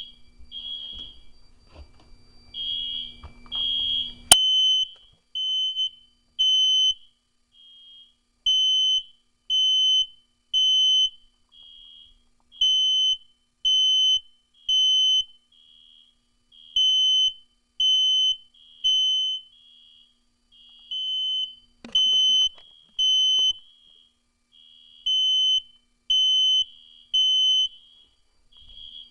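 Smoke alarm sounding the temporal-three evacuation pattern: three high-pitched beeps a second apart, then a pause, repeating about every four seconds, with a fainter second alarm beeping out of step in the gaps. For the first four seconds a different alarm beeps over a low hum, ending in a sharp click.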